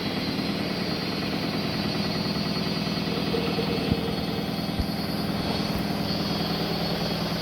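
Haier HW100-1411N front-loading washing machine spinning its drum at speed: a steady hum with a fast low flutter, and two brief knocks about four and five seconds in.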